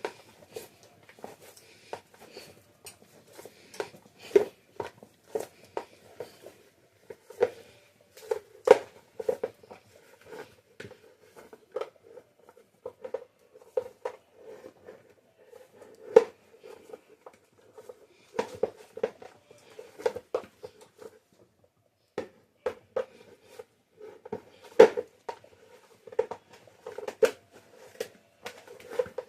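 Wet hands kneading fried-dumpling dough: a long run of irregular soft slaps and thuds as the dough is pressed and folded, with a brief pause a little past the twenty-second mark.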